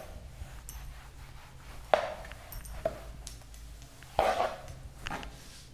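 Whiteboard eraser wiping the board: a few short swipes and knocks against it over a low room hum.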